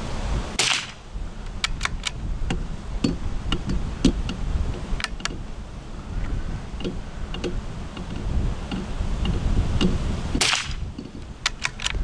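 Two .22 LR rifle shots from an Anschütz rifle firing CCI Standard ammunition, one just under a second in and one near the end, each a sharp crack with a short tail.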